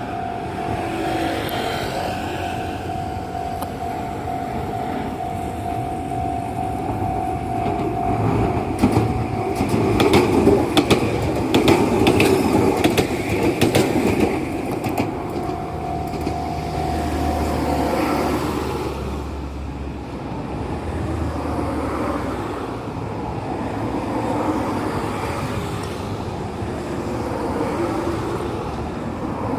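Level-crossing warning bell ringing with a steady tone while an Enoden (Enoshima Electric Railway) train passes over the crossing. A rapid run of wheel clacks over rail joints comes at the loudest point, about a third of the way in, followed by a low motor rumble. The bell stops about two-thirds of the way through.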